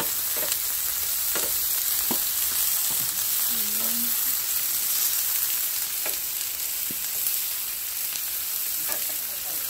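Sliced zucchini, yellow squash and asparagus sizzling in a pan on the stove: a steady hiss with scattered small pops.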